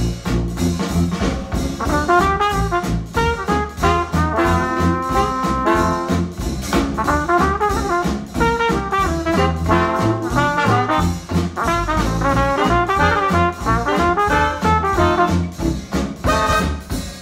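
Upbeat retro jazz tune with trombone and trumpet over a steady beat and bass, played back through ELAC Uni-Fi 2.0 UB52 bookshelf speakers driven by an Arcam SA10 amplifier.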